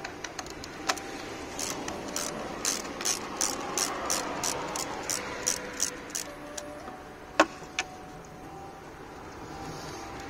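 Ratchet tool clicking at about three clicks a second while a worm-drive hose clamp is loosened, followed by two sharper single clicks.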